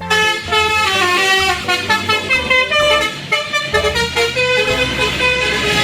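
Bus 'telolet' multi-tone air horn of the Basuri type playing a quick tune of short stepped notes, with a low rumble beneath.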